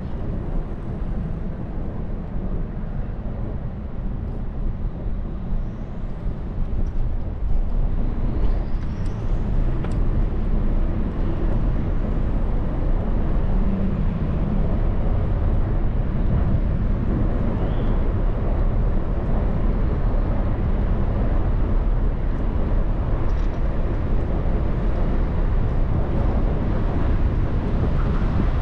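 Wind buffeting the microphone while riding a bicycle, a steady low rumble.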